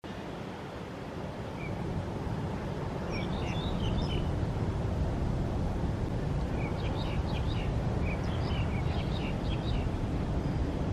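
Distant low rumble of a Boeing 777 freighter's twin GE90 jet engines on final approach, growing slightly louder over the first few seconds. Small birds chirp several times over the top.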